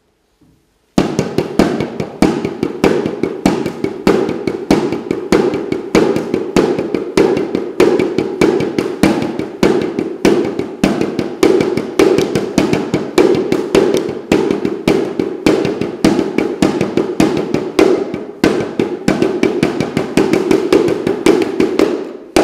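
Frame drum beaten rapidly and steadily, loud strike after strike, starting suddenly about a second in and stopping just before the end.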